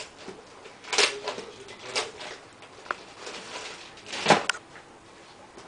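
A handful of short, scattered knocks and scratchy rustles, about four over several seconds with the loudest near the end: a cat shifting about in a shopping basket as it is teased.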